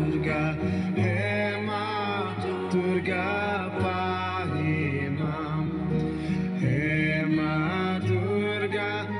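Devotional music: a voice singing a drawn-out melody over held low notes that shift in steps.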